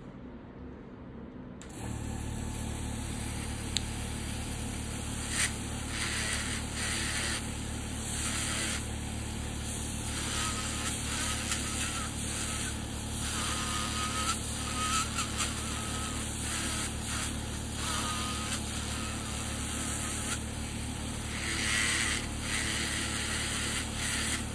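Electric podiatry nail drill switched on about two seconds in and running steadily with a low hum. Grinding scrapes come and go as the burr files down a fungal toenail.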